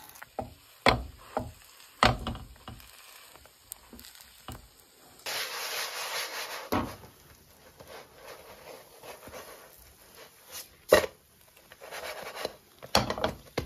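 A spatula pressing glutinous sticky bean buns flat in a frying pan, with a few knocks of the spatula against the pan. From about five seconds in, the flattened buns sizzle steadily as they fry in oil, with occasional sharp clacks of the spatula on the pan; the loudest comes about eleven seconds in.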